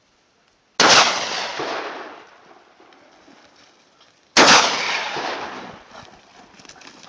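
Two loud gunshots from a hunting gun, about three and a half seconds apart, each trailing off in a long echo. The shots are fired at driven wild boar.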